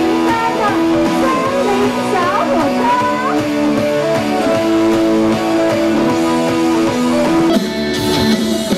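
Background music led by a guitar, its notes sliding and bending in pitch over held chords. Near the end the arrangement turns fuller and brighter.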